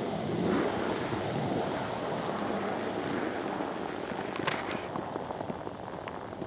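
Steady low rumble with wind buffeting the microphone, and a brief crackle about four and a half seconds in.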